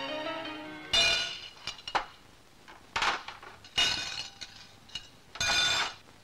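Background music fades out in the first second, then glassware and crockery crash and shatter in a series of about five sharp, ringing impacts, roughly one a second, the last one the longest.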